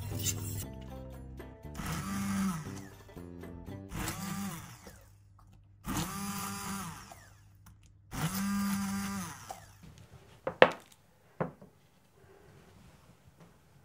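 Hand-held immersion blender puréeing thick cooked blueberry filling in a steel pot, run in four short bursts, the motor's whine spinning up and winding down each time. Two sharp knocks follow near the end.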